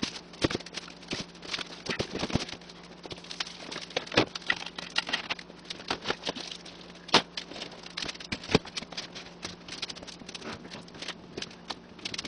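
Irregular knocks, clunks and scrapes of cardboard boxes and a plywood crate being shifted and handled, with a few sharper, louder knocks among them.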